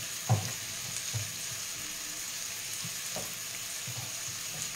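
Sausage meat and soffritto sizzling steadily in a frying pan, with short knocks of a knife on a wooden cutting board as sausage is cut into pieces; the loudest knock comes about a third of a second in.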